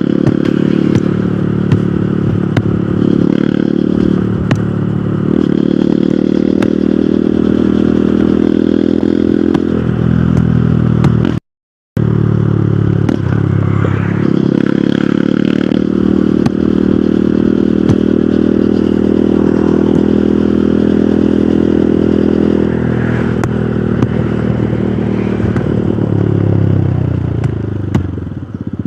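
Hero Hunk motorcycle's single-cylinder engine running steadily while riding, with the pitch settling lower a few times as the throttle changes. Near the end the engine note fades back as the bike eases off.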